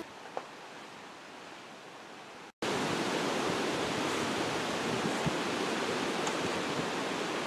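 A faint hiss, then, after a sudden cut about two and a half seconds in, a much louder steady rushing noise with no pitch to it, typical of outdoor air and wind noise on the microphone.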